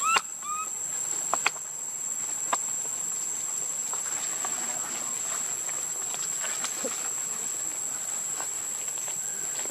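Steady high-pitched drone of insects. In the first second a baby macaque gives a few short squeaky calls, and a couple of light clicks follow.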